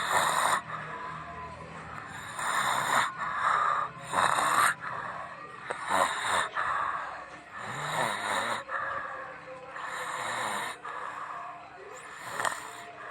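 A person snoring, one noisy breath every one to two seconds.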